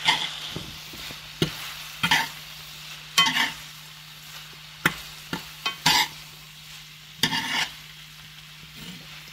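Spaghetti being tossed in a cast iron skillet with a metal spoon and fork: the utensils clink and scrape against the pan about seven times, irregularly, over a faint sizzle and a steady low hum.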